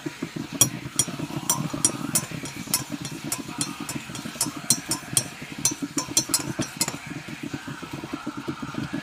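Metal spoon stirring coffee in a ceramic mug, clinking against the sides about three times a second, some twenty clinks, stopping about seven seconds in. Underneath runs a steady low, fast throbbing rumble.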